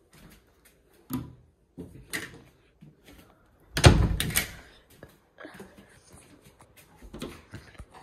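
Interior doors being pushed open and bumped: a run of separate knocks and thumps, the loudest and longest about four seconds in.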